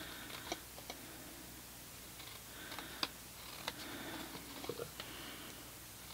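Small paper snips cutting tabs into cardstock: a few faint, sharp snips and clicks at uneven intervals.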